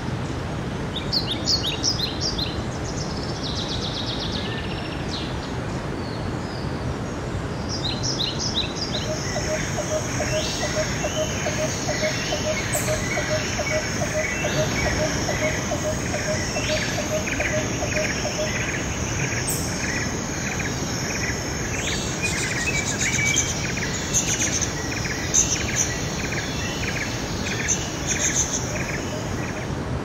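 Mountain stream rushing steadily over rocks, with forest songbirds singing over it: sharp high chirps near the start, then a long run of evenly repeated notes, joined from about nine seconds in by a low, even series of piping notes, about three a second, that stops about halfway through.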